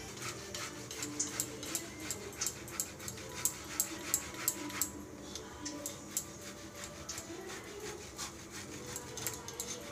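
Boiled potato being grated on a stainless steel box grater: a run of short rasping strokes, irregular, about three a second.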